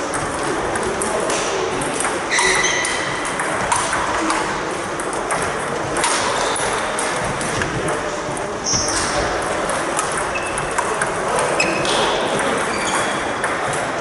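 Table tennis balls clicking off paddles and bouncing on tables in an irregular patter of sharp ticks, with rallies going at several tables at once.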